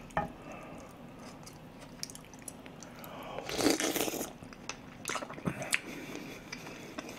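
A person slurping pork soup from a wooden spoon, a brief loud slurp about halfway through, followed by chewing with small wet mouth clicks.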